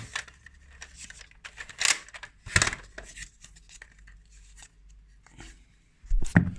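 Plastic Nerf blasters and magazines being handled: scattered sharp clicks and rustling, with a few louder knocks about two and two-and-a-half seconds in.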